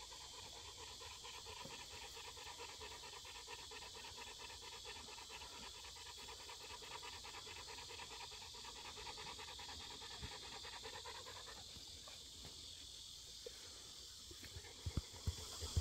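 Dog panting in a fast, even rhythm, stopping about three quarters of the way through, over a steady high chorus of insects. A few low thumps near the end.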